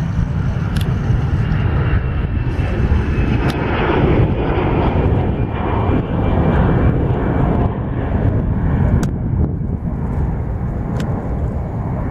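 Airbus A319 jet engines at takeoff thrust as the airliner lifts off and climbs out: a loud, steady, deep rumble with a hiss and a faint whine above it.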